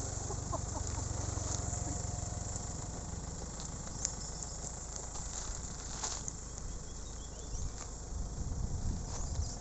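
Insects chirring steadily in a high hiss, over a low steady engine rumble.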